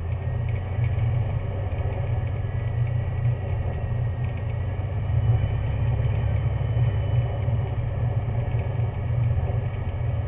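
Cessna 182's single piston engine and propeller giving a steady, even drone.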